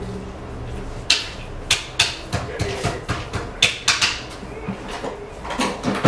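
A barber's hand slapping and patting the face and neck: a run of sharp, irregular slaps on skin, about a dozen.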